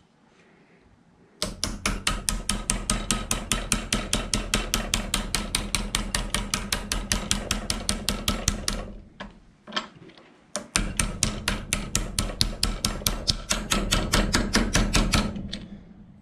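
Ball-peen hammer tapping lightly and rapidly, about six blows a second, to drive a gear off its shaft on a Cummins VGT turbo actuator held in a bench vise. The taps start about a second and a half in and stop for about two seconds around the middle before going on again.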